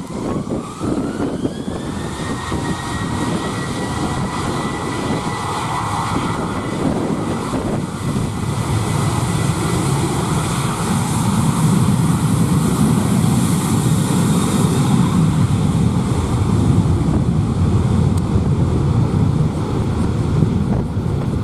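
Jet airliner's engines spooling up: a whine rises over the first two seconds and then holds steady, while a low rumble builds and is loudest in the second half.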